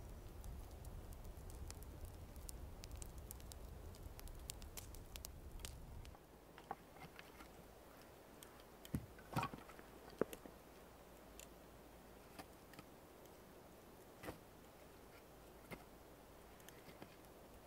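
Campfire crackling faintly: frequent small pops over a low rumble at first, then after about six seconds only scattered pops and a few louder clicks.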